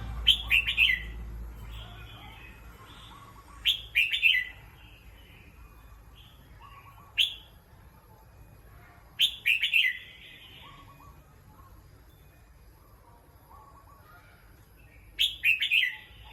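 Red-whiskered bulbul singing: four short song phrases a few seconds apart and one lone note, with fainter chirps in between.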